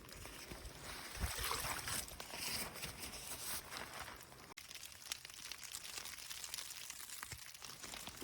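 Steady hiss of rain and wind on a tent, with fine pattering ticks.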